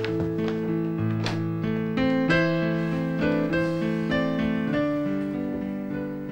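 Background piano music: sustained notes and chords, a new note coming in every half second or so.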